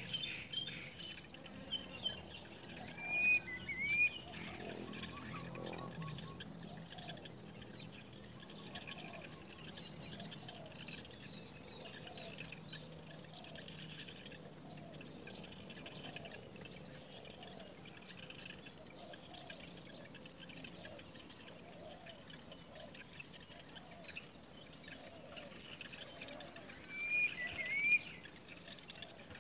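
Birds calling against a steady outdoor hiss, with a loud pair of upward-sweeping whistled calls about three seconds in and again near the end, and faint repeated chirps in between.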